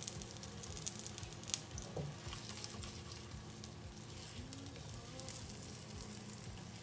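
Olive oil sizzling and crackling in a non-stick pan around a frying wheat-flour flatbread, freshly oiled along its edge after being flipped. The crackles are sharpest in the first couple of seconds, over a steady sizzle.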